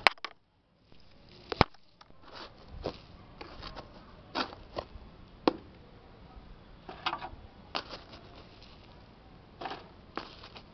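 A hand digging through dry potting soil and fibrous ginger roots in a pot: irregular crackles and sharp clicks with soft rustling of soil and dry leaves.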